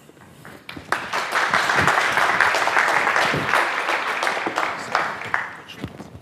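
Audience applauding: a dense patter of many hands clapping that starts about a second in and fades out near the end.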